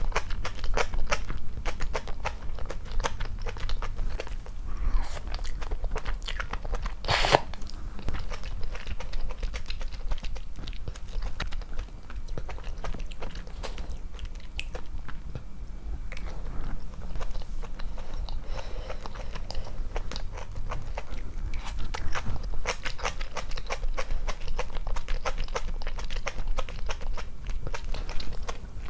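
Close-miked eating sounds: irregular wet chewing, biting and smacking of the mouth as someone eats, with a brief louder noise about seven seconds in.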